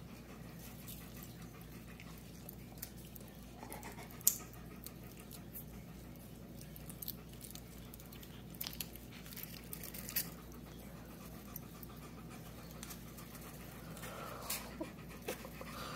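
Faint scattered clicks and rustles of a tinsel garland being dangled and batted at by a cat, the sharpest click about four seconds in, over a steady low room hum.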